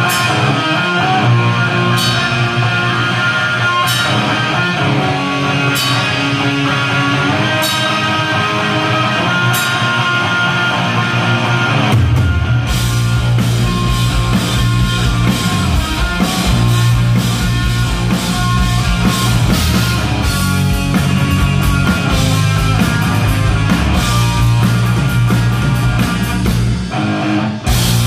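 Live rock band playing electric guitars and a drum kit. Guitars play with sharp accents about every two seconds at first, then the full band with heavy drums and bass comes in about twelve seconds in.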